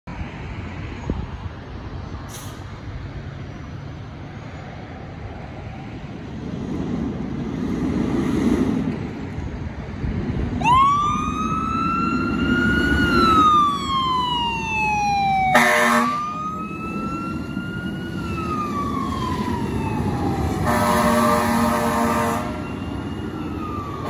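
Fire engine's diesel engine rumbling and then revving as the truck pulls out. About ten seconds in, its siren starts a slow wail, rising and falling twice. Its air horn gives a short blast in the middle and a longer blast of about two seconds near the end.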